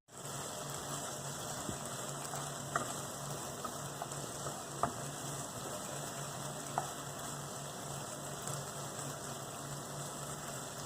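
Food sizzling in a hot pan, with a few light clicks of a utensil against the pan.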